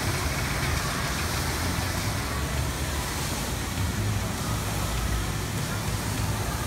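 Steady outdoor background noise with a low, unsteady rumble and an even hiss, with no single sound standing out.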